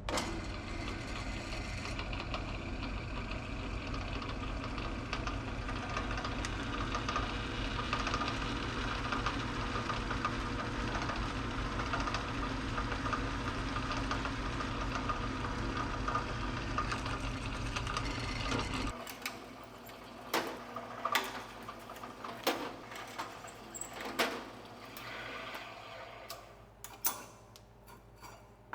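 An electric power tool motor running steadily while working a metal plate, switched off about two-thirds of the way through, followed by scattered clicks and knocks of metal parts being handled.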